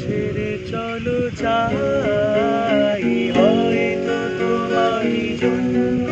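A man singing a Bengali song, accompanied by a strummed acoustic guitar.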